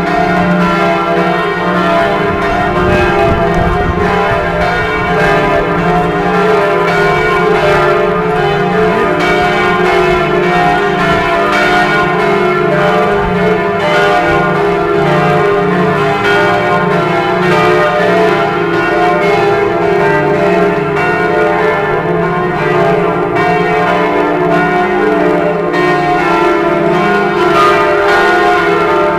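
Notre-Dame de Paris cathedral bells ringing together: several bells striking in quick, overlapping succession, building into one continuous, loud peal with a steady hum of lingering tones.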